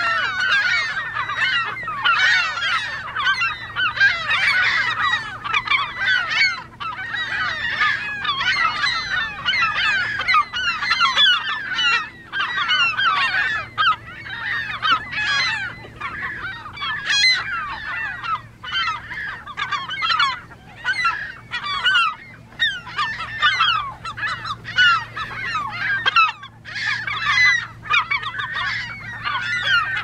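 Many gulls calling over one another at once, a dense, continuous clamour of overlapping calls with no real break.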